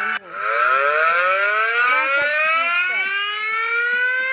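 Siren winding up as an emergency alert alarm sounds: one tone rising steadily in pitch and slowing its rise as it climbs. It starts just after a sudden cut-off of the previous sound.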